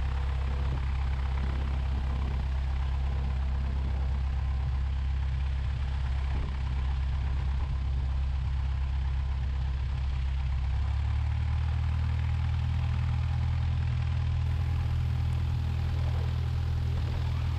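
The 1969 Cessna 172's four-cylinder Lycoming O-320 engine running steadily at low taxi power, a deep even drone. About two-thirds of the way through it steps up slightly in pitch as the rpm rises a little.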